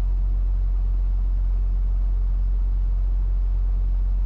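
Semi truck's diesel engine running with a steady low drone, heard from inside the cab as the truck rolls slowly.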